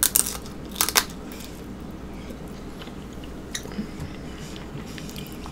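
A person biting into food with crunchy, crackly bites near the start and again about a second in, then chewing quietly with a few faint clicks, picked up close on the microphone.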